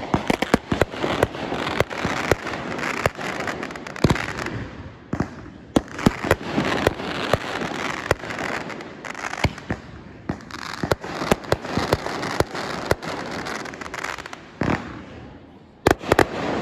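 Fireworks going off: a dense string of sharp bangs and pops, several a second, with crackling between them. There are a few louder reports at the start, about four seconds in and near the end.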